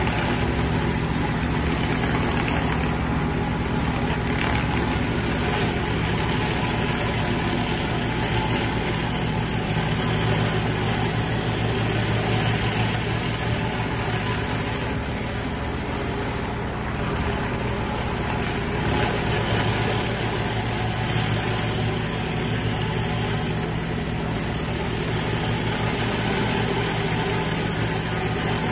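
Pressure washer engine running steadily under load, over the hiss of water jets from a flat surface cleaner pushed across wet, foamy paving slabs.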